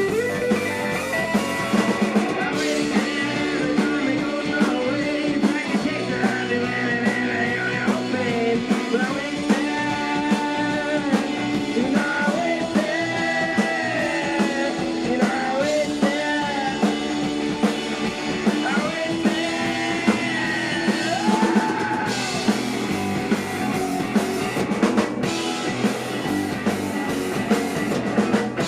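Rock song with electric guitar, drum kit keeping a steady beat, and a sung vocal through the middle.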